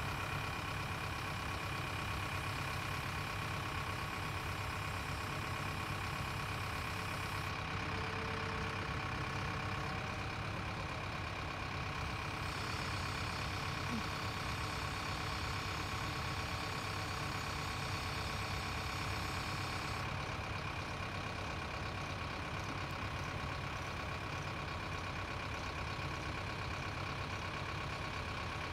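Heavy machinery engine idling steadily: a constant low hum with a faint steady whine over it.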